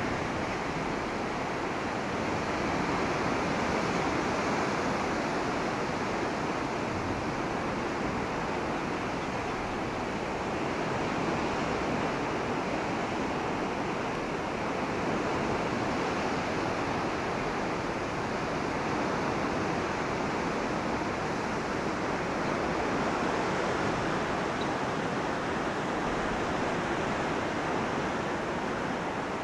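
Steady rushing noise of sea surf breaking at the foot of the cliffs, mixed with wind across the microphone, swelling and easing slowly.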